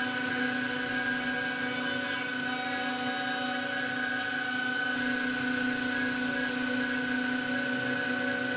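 CNC router spindle running at a steady pitch as its end mill cuts into a block of wood, carving a relief figure, with a hiss of cutting under the whine. A little more low rumble comes in about five seconds in.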